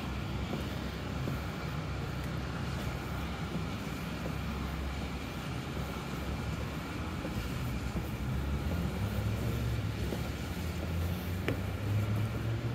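Street traffic: a steady low rumble of motor vehicles, with a heavier engine hum growing louder in the last few seconds.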